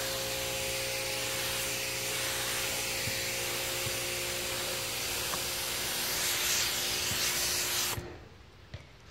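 Pressure washer jet spraying water onto a car's painted body panels: a steady hiss with a steady machine hum beneath it, both cutting off suddenly about eight seconds in.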